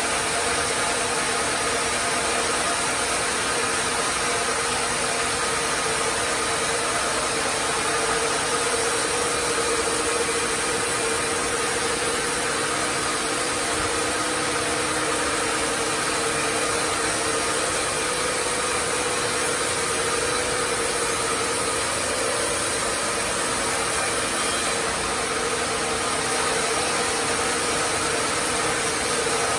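Sawmill machinery with its log carriage running steadily: a continuous mechanical hum and hiss with a faint steady whine, unchanging in level.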